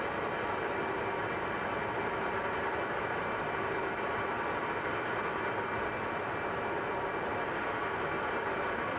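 Steady aircraft engine drone, an unchanging rush of noise with a faint hum of steady tones running through it.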